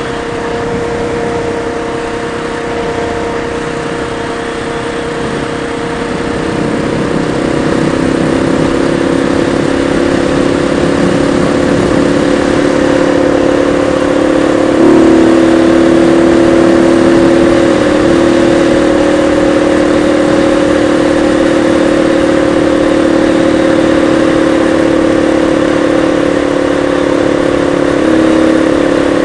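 Motorcycle engine running at road speed while riding. The engine gets louder and higher about seven seconds in and steps up again about halfway through as the throttle opens.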